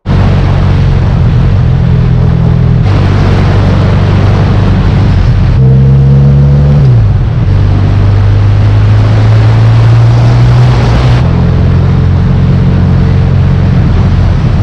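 Big motorcycle engines running at road speed under a loud rushing noise, in several spliced-together stretches; about six seconds in, the engine pitch drops as the bike slows.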